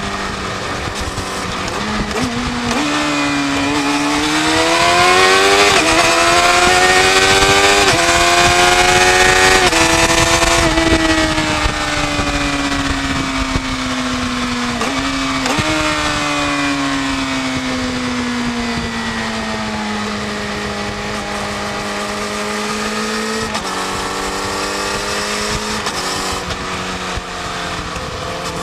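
Yamaha YZF-R6's inline-four engine through its stock exhaust while riding. It runs steadily at first, then rises in pitch as the bike accelerates for several seconds. It falls away as the bike slows, with a quick blip partway down, and settles back to a steady cruise.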